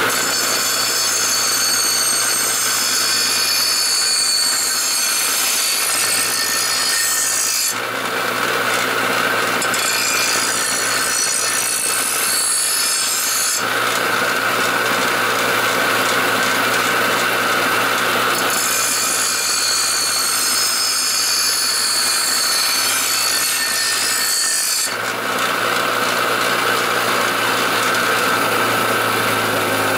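Bench grinder running with a steel lawnmower blade held against its grinding wheel, sharpening the blade's cutting angle: a steady motor hum under a loud, hissing grind. The grind changes abruptly about 8, 14, 19 and 25 seconds in as the blade is repositioned on the wheel.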